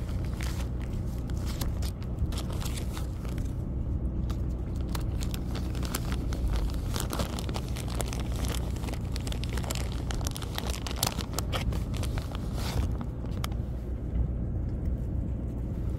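The ship's machinery runs with a steady low hum, while a snack packet crinkles and crackles in someone's hands.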